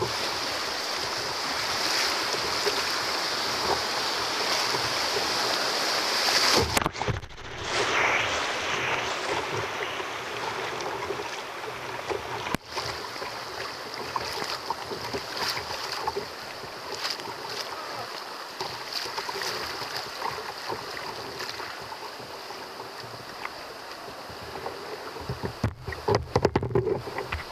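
Rushing whitewater of a flood-swollen river's rapids heard from a kayak, a steady noisy rush of water that gradually quietens as the kayak reaches calmer water near the end, with a few close splashes.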